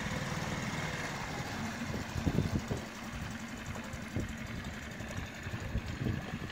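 Small outboard motor on an inflatable dinghy running at low speed close by: a steady low hum with a fast even pulse. A few louder low thuds come about two seconds in.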